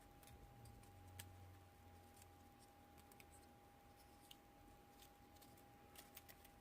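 Near silence with faint, scattered light clicks of small quadcopter frame parts being handled and fitted, several in quick succession near the end, over a faint steady high tone.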